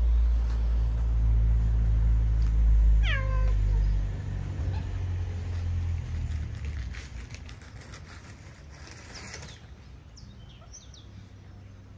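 A cat gives one short meow about three seconds in, falling in pitch. Under it is a loud low rumble that fades away after about four seconds.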